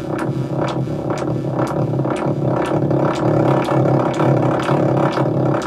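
Make Noise Eurorack modular synthesizer patch with the MMG filter in the chain, while the MMG's knobs are being turned. A steady low drone plays under sharp percussive ticks, about two a second.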